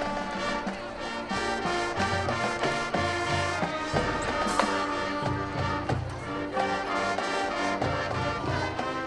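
Marching band playing: brass holding chords over pulsing low brass, with drum hits.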